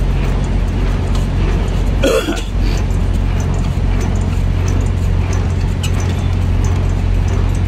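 Semi truck's diesel engine running with a steady low drone, heard from inside the cab. About two seconds in there is one short throat sound, like a throat clearing.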